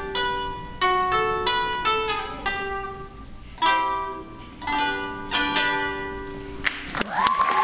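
Ukulele playing the closing strummed chords of a song, each chord left to ring out with pauses between. About seven seconds in, audience applause and a whistle break out.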